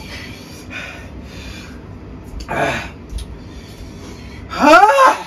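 A person gasping and breathing hard through the burn of an extremely hot chili chip, with hissing breaths and a louder one about halfway. Near the end comes a short, loud vocal cry that rises in pitch.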